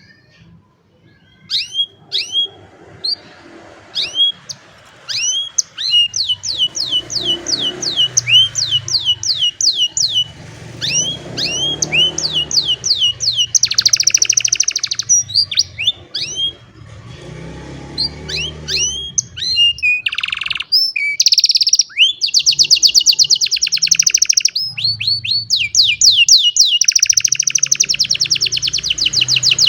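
An old domestic canary singing: a few separate chirps at first, then long runs of rapid repeated falling notes broken by dense buzzing rolls.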